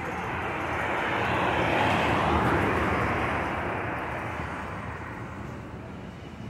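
A vehicle passing by: a rush of noise that swells to a peak about two seconds in and then fades away.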